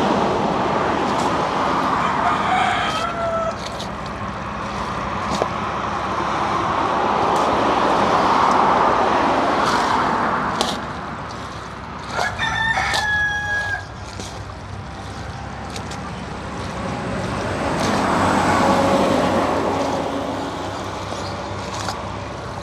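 A rooster crowing: one held call of about a second and a half, roughly twelve seconds in, and a shorter call near the start. Underneath is a rushing noise that swells and fades twice.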